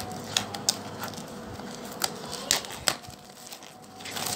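Clear plastic shrink-wrap crinkling as it is peeled off a watch box, with about half a dozen sharp crackles spread through.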